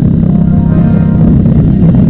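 Steady low drone of a vehicle driving on the road, with music playing over it.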